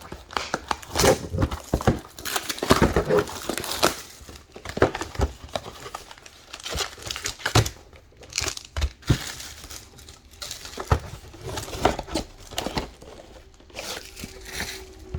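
Trading-card pack wrappers being torn open and crinkled by hand, an irregular run of crackling rustles and rips.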